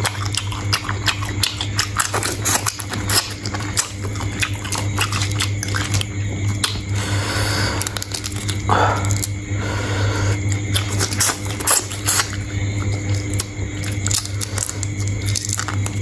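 A person eating shrimp: irregular crackles, clicks and chewing over a steady low hum.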